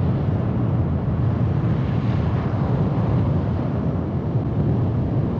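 Space Shuttle Main Engine, a liquid-hydrogen and liquid-oxygen rocket engine, firing steadily on a static test stand: an unbroken deep rumble.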